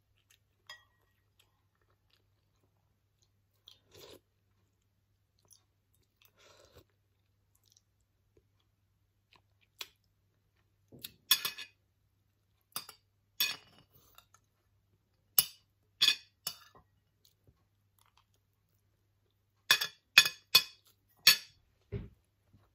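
Close eating sounds: chewing fried rice and a metal spoon clicking against a ceramic plate, quiet at first and then in short clusters of sharp clicks from about ten seconds in. A low thump comes near the end.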